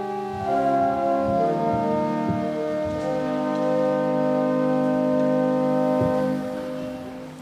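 Church organ playing slow, held chords that move to new notes every second or so, dying away near the end.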